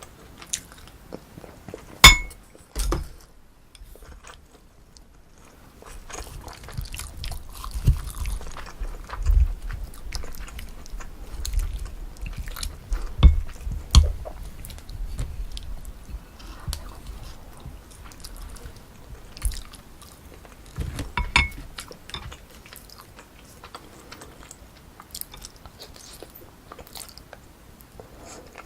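Close-miked eating sounds: chewing and biting on pork kimchi stew with rice. There are two sharp, ringing clinks of a utensil against a dish, one about two seconds in and one about three-quarters of the way through.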